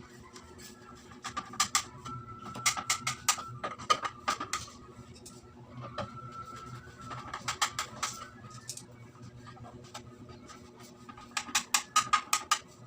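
Irregular clusters of sharp clicks and light taps, with a faint steady hum underneath.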